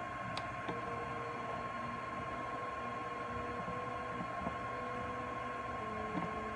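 A button click on a Canine P4 portable fluorescence progesterone analyzer, then a faint steady hum while the analyzer reads the test strip, stopping near the end.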